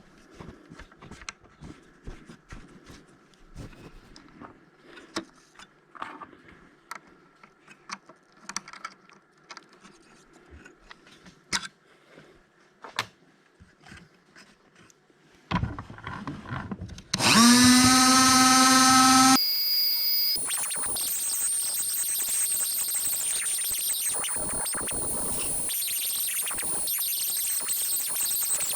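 Scattered clicks and knocks of the workpiece and tools being handled, then about fifteen seconds in the milling machine's motor starts, rising in pitch to a steady whine. From about twenty seconds the cutter bites into the sprocket hub to cut the keyway, a loud steady noisy cutting sound with a high whine over it.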